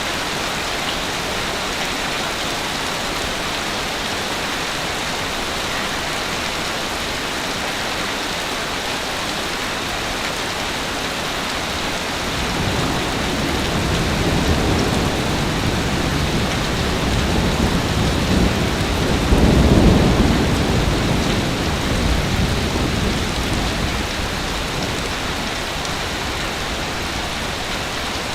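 Steady hiss of surf on a beach. About midway a wave's deep rumble swells, peaks about two-thirds of the way through, then fades back into the hiss.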